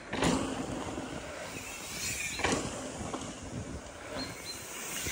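Wind rumbling and buffeting on a handheld camera's microphone, a steady noisy hiss, with two brief knocks: one just after the start and one about halfway through.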